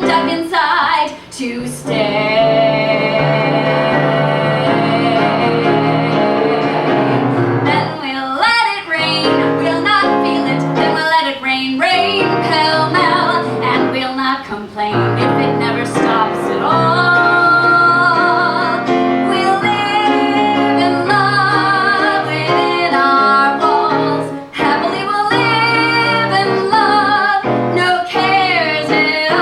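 A woman singing a slow show tune with vibrato over steady musical accompaniment, in a live performance.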